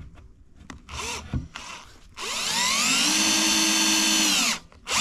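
A few light handling clicks, then a Festool cordless drill spins up with a rising whine, runs steadily for about two and a half seconds boring a small pilot hole for a hinge screw through the hinge jig's guide hole into the wooden door, and winds down. It starts again briefly near the end.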